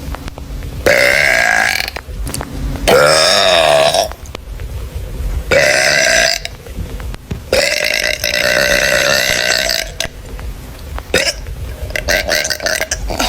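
A girl burping long and loud, five burps one after another with short pauses between, each about a second long except one past the middle that drags on for over two seconds.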